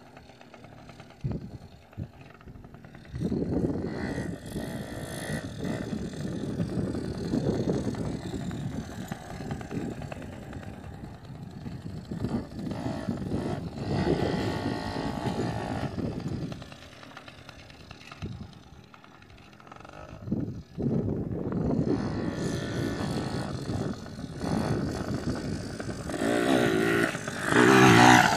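Small youth dirt bike engine running and revving as it is ridden, its pitch rising and falling with the throttle. It is quieter for the first few seconds and for a couple of short stretches later, and loudest near the end when the bike is close by.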